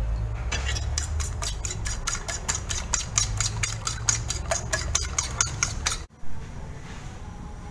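Eggs being beaten with a utensil on a ceramic plate, which clicks against the plate about four or five times a second, over a low steady hum. The clicking stops suddenly about six seconds in, leaving only the hum.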